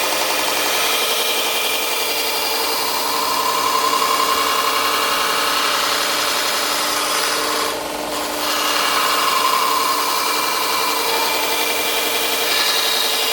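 2x72 belt grinder running with a steel knife blade held against the belt, grinding the bevel. The grinding noise drops briefly about eight seconds in.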